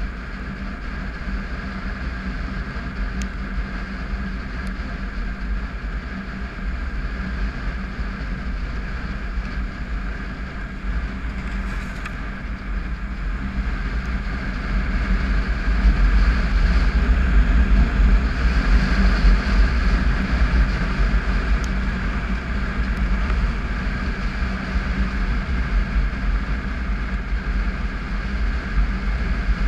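Triumph Tiger 955i's three-cylinder engine running steadily under way on a gravel road, mixed with wind and road rumble. It gets somewhat louder about halfway through.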